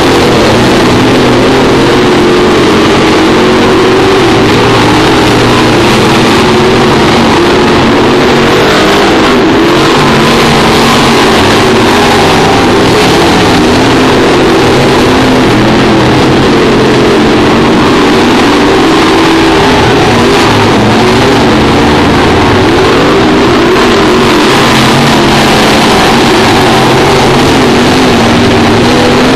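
Several dirt-track late model race cars' V8 engines running loud around the oval, their pitches rising and falling as the cars lap.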